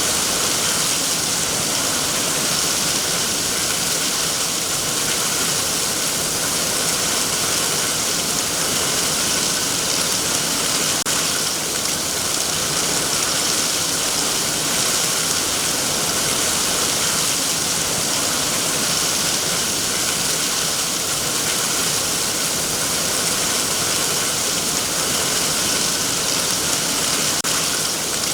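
Heavy rain falling steadily on trees, a dense even hiss of drops with no let-up.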